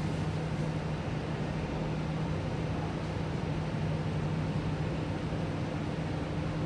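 Steady low hum and air noise of an Alstom Metropolis C830C metro train standing at a platform with its doors open, its air-conditioning and onboard equipment running.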